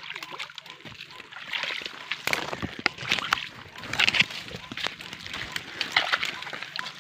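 Footsteps sloshing and splashing through shallow swamp water and wet mud, in an irregular run of splashes.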